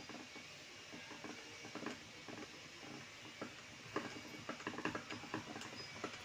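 Nozzle cap nut being spun by hand onto a Siemens Continental diesel injector body: faint, irregular light metallic clicks and ticks, more frequent from about two seconds in, over a steady low hiss.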